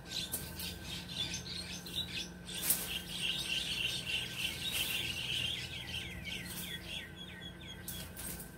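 Small songbirds chirping and twittering in a fast run of short notes, densest through the middle and ending in quick falling notes. A few sharp crackles from dry leaf litter underfoot cut in.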